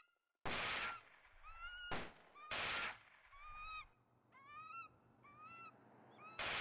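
Film sound effects of gunfire and screeching birds. The gun goes off twice loudly within the first three seconds, once more softly between those shots, and again at the very end. In between, a bird screech rising and then levelling off repeats about six times, each call sounding the same.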